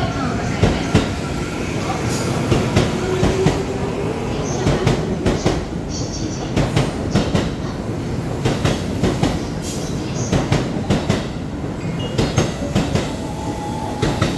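Tokyo Metro 15000-series electric commuter train pulling out and gathering speed past the platform, its wheels clicking in a steady clatter over the rail joints. A faint whine rises in pitch during the first half as the train accelerates.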